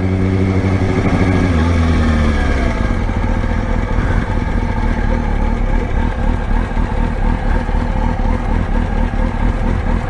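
Kawasaki Ninja ZX-6R's inline-four engine running at low revs as the bike rolls off, heard from the rider's helmet camera; after about two seconds the steady engine tone gives way to a noisier, steady rush of engine and wind as the bike gets under way.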